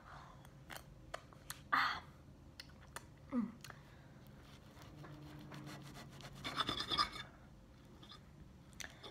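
Close-up eating sounds: a metal fork scraping and clinking on a ceramic plate as it cuts into a burrito, with chewing and scattered small mouth clicks. The plate sounds bunch together about seven seconds in.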